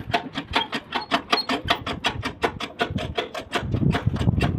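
Ashok Leyland 2518 truck's rear axle crown (differential) giving a fast, even clicking, about eight clicks a second, as it turns. This is the crown noise being diagnosed, which the mechanic suspects comes from a part that has gone tight or seized. A low rumble swells near the end.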